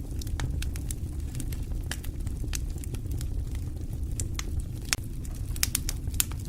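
Wood fire burning in a fireplace: a steady low roar of flames with irregular sharp crackles and pops, several a second.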